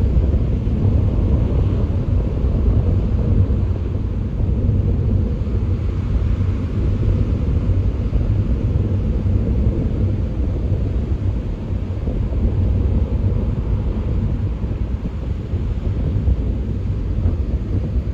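Strong wind buffeting the microphone in a steady low rumble, over the hiss of churning ocean surf breaking on the beach.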